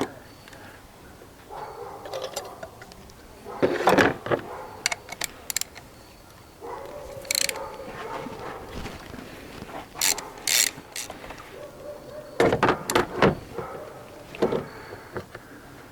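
Ratchet and spark plug socket on an extension clicking and clanking in several short bursts while a spark plug is loosened and drawn out of a front cylinder of a 2007 GMC Acadia's V6.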